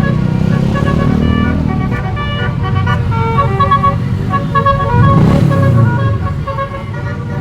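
Bus telolet horn playing a tooting tune of short notes that step between pitches, over the rumble of a bus engine. The engine swells loudest about five seconds in as the bus passes close.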